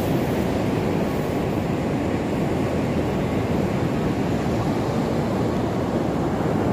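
Steady ocean surf, with wind on the microphone adding a low rumble.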